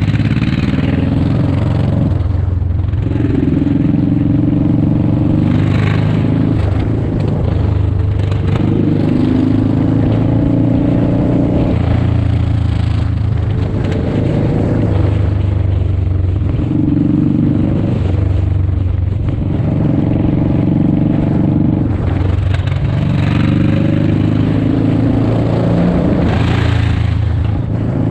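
Motorcycle engine running under way, its note rising and falling again and again as the throttle is opened and closed, with wind noise over the microphone.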